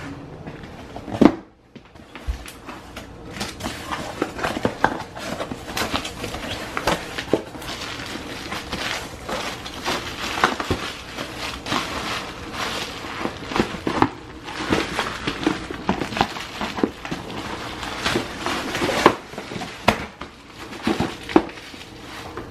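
A cardboard shipping box being opened by hand and plastic bubble wrap handled and pulled out, crinkling and rustling with many small irregular crackles. A single sharp knock about a second in.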